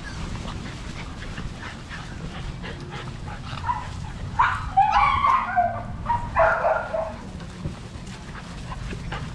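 American Bully puppies barking and yipping in play: a run of short, high yaps about four and a half seconds in, then another about a second later.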